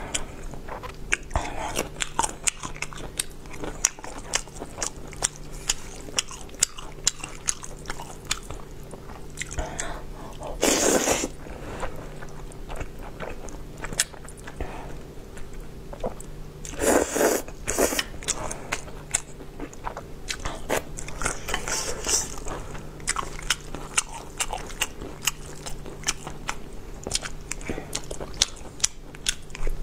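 Close-miked eating of black bean sauce noodles: wet chewing and mouth clicks throughout, with crunchy bites and two long, loud noodle slurps, about a third of the way and just past halfway through.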